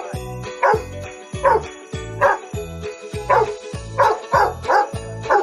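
A dog barking repeatedly, a string of short barks that come quicker near the end, over background music with a steady beat.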